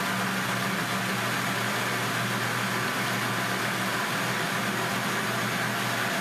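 Philco countertop blender running steadily at full speed, mixing a thick cake batter, with a low motor hum under an even whir.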